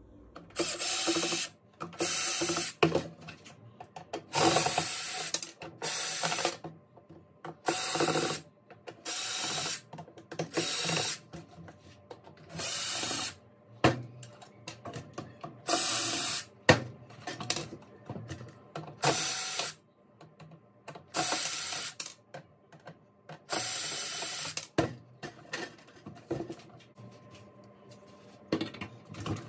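Cordless drill/driver with a screwdriver bit running in short bursts of about a second, a dozen or so times, backing screws out of a soundbar's plastic and metal case. Clicks and knocks of handling come between the bursts.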